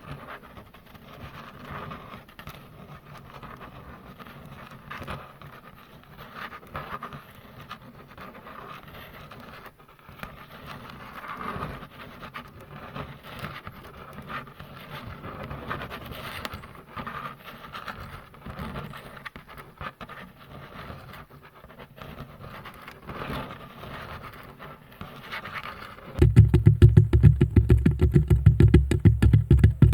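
Hands rubbing and scratching softly on a microphone, as in an ASMR ear massage. About 26 s in, this gives way to much louder, fast, rapid rubbing with a heavy low rumble.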